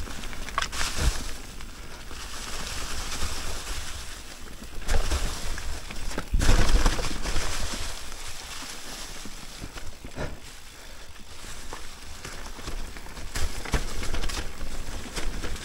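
Mountain bike ridden down a dirt trail: a rushing, uneven wind and tyre noise with a low rumble, broken by sharp knocks and rattles as the bike hits bumps, the loudest about six and a half seconds in.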